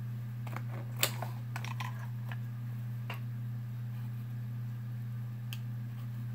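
Light plastic clicks and taps from handling an eyeshadow palette, a cluster in the first three seconds with the sharpest about a second in and one more near the end, over a steady low hum.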